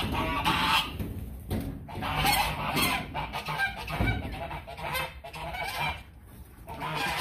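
Domestic waterfowl calling over and over in short bouts, easing off briefly about six seconds in.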